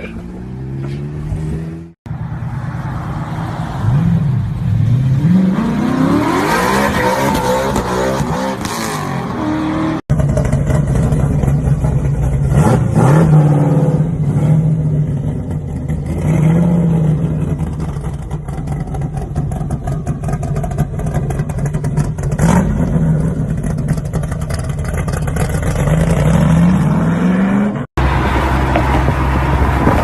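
Several car engines in quick succession. First an engine revving up, its pitch rising. The longest stretch is a Shelby Cobra-style roadster's engine idling with a steady low note and blipped about four times, the revs rising and dropping each time; near the end it cuts abruptly to another engine.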